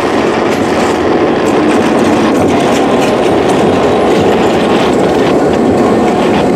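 Western Pacific EMD GP7 diesel locomotive passing close by at the end of a passenger train, its engine running and its steel wheels rolling over the rails in a loud, steady rumble.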